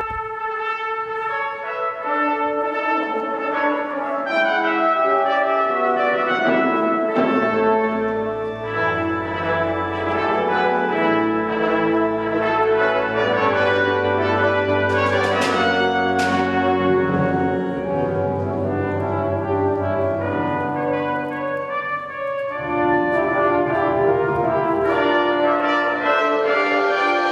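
Brass instruments playing a slow piece in sustained chords over a held low bass line. The music starts abruptly at the very beginning.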